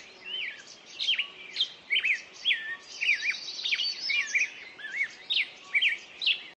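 Songbirds singing together: quick whistled notes and chirps, many sliding up and down in pitch, with a fast trill running over them at times. The sound cuts off abruptly at the end.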